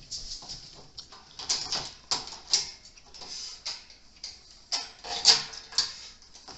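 Irregular light clicks and rattles of small metal antenna hardware (bolts, spacers and nuts) being handled and fitted to the antenna element and reflector.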